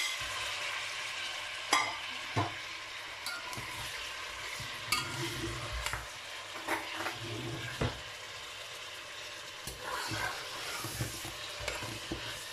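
Raw beef chunks sizzling in hot oil in a steel pot, stirred with a metal spoon that knocks and scrapes against the pot now and then over a steady hiss.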